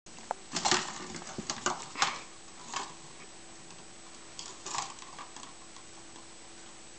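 Plastic ball-track cat toy clattering on a tile floor as a kitten bats the ball and shoves the ring: a run of clicks and rattles in the first two seconds, another about three seconds in, and a last cluster around five seconds in.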